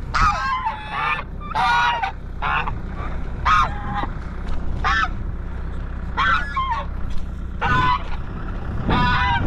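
Domestic geese honking repeatedly, short calls about once a second.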